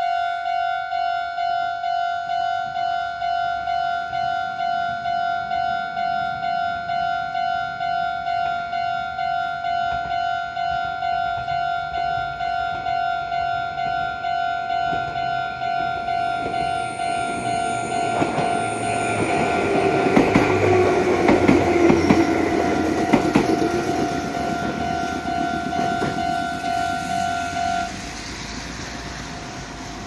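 Japanese level-crossing warning bell ringing in a steady two-tone clang at about two strokes a second while a local train passes, its wheels clattering over the rail joints about two-thirds of the way in. The bell cuts off a couple of seconds before the end as the crossing clears.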